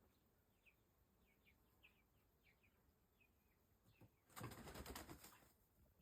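Faint short chirps, then, a little after four seconds in, a chicken flapping its wings for about a second.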